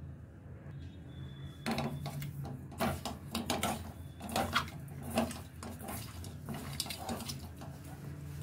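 Hands rubbing turmeric and salt into small tangra fish in a stainless steel bowl: irregular wet handling sounds and fish knocking against the metal, starting about two seconds in. A steady low hum runs underneath.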